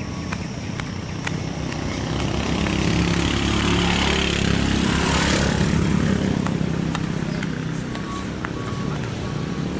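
A steady engine idling, with a motorcycle passing close by: its engine and road noise swell to the loudest point about five seconds in and then fade away.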